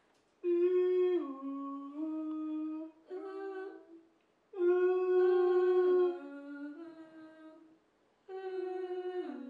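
Two voices, a woman's and a man's, humming a wordless melody together into one microphone. They sing about four phrases of held notes, each stepping down in pitch, with short breaks between.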